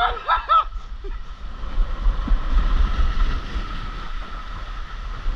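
Rushing water and wind buffeting a wearable camera's microphone on a water slide ride, a steady low rumble with a rushing hiss. A high voice shouts briefly at the start.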